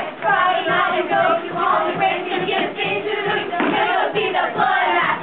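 A young cast singing a musical-theatre number together, several mixed voices in chorus over a steady rhythm.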